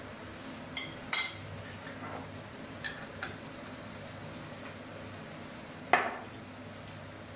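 Kitchen containers handled over a frying pan: a glass sugar jar clinks with a brief ring around one second and again around three seconds in, then a louder knock as the jar is set down on the counter about six seconds in. Tomato sauce simmers faintly in the pan underneath.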